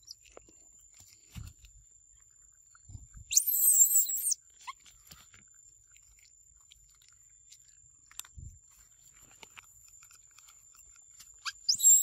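Long-tailed macaques taking peanuts from a hand: two loud, shrill, high-pitched bursts about a second long, one about three seconds in and one near the end, with a few soft low thumps between. A thin steady high tone runs underneath.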